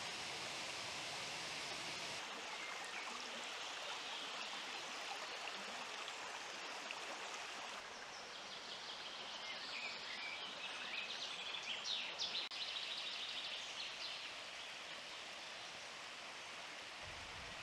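Steady rush of a waterfall on a forest stream, with high bird chirps for a few seconds in the middle.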